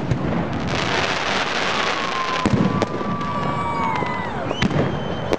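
New Year fireworks going off: a continuous crackle with several sharp bangs scattered through it, and a few thin whistling tones that slide slowly downward in the middle.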